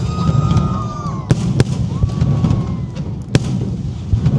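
Fireworks show: a continuous low rumble of launches and bursts, with sharp bangs about a second in, again just after, and at about three and a half seconds. Two whistling tones from whistling shells sound over it, each dropping in pitch as it ends.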